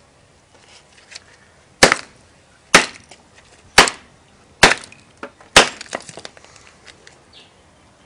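Hammer blows on a microwave-melted Sony Ericsson phone lying on concrete paving slabs: five sharp strikes about a second apart, with a few fainter clicks around them.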